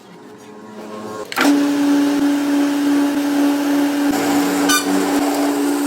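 Electric power tool motor starting with a sharp onset about a second and a half in, then running at a steady whine.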